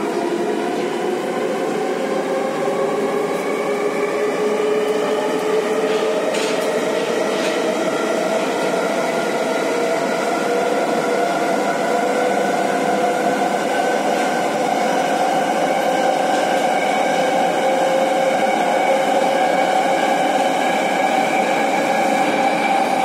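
Metro train accelerating out of a station: the traction motors' whine climbs in pitch over the first several seconds, then holds steady as the train runs through the tunnel, over a constant rush of wheel and tunnel noise.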